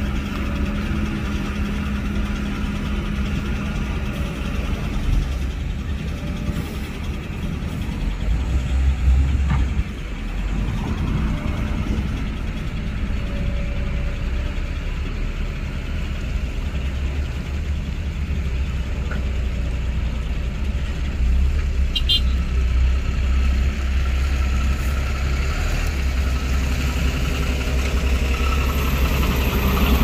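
Diesel engine of heavy construction machinery running steadily, with a louder swell about a third of the way through.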